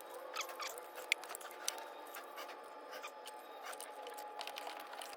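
Faint, scattered clicks and light taps of an electrical outlet and its wiring being fitted by hand, over a faint steady hum.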